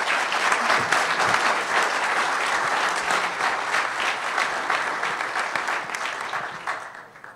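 Audience applause in a conference hall at the end of a talk, a steady wash of clapping that thins and fades away near the end.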